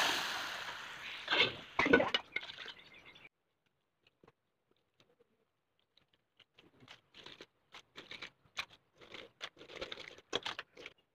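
Liquid masala poured into hot oil with fried mustard seeds and curry leaves, sizzling loudly and dying down over the first second or so, with a few sharper splutters. After a break of a few seconds, scattered light clicks and crackles.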